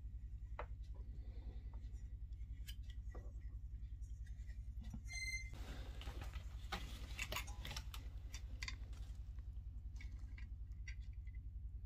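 Metal hard-drive parts being handled and set down: scattered light clicks and taps, a brief high ringing note about five seconds in, then a denser run of clicks and rustling over the next few seconds. A steady low hum runs underneath.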